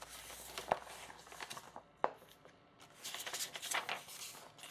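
Handling of small plastic kit parts and their packaging: rustling, with a few sharp light clicks, about a second in and again about two seconds in.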